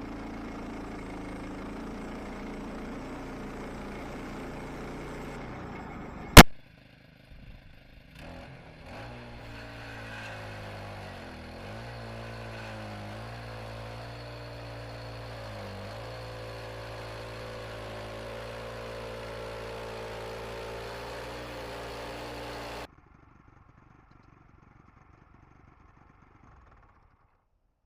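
An engine running steadily, with one sharp, very loud click about six seconds in. After a short lull the engine hum comes back, dips in pitch briefly twice, and cuts off abruptly near the end.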